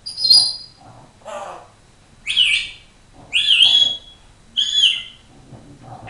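African grey parrot whistling and calling: a string of five or six short whistles and chirps about a second apart. Several glide in pitch, and one longer whistle comes about halfway through.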